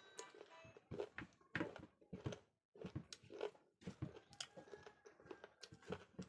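Close-up eating sounds: chewing with irregular crunches and wet clicks, in uneven bursts with short pauses.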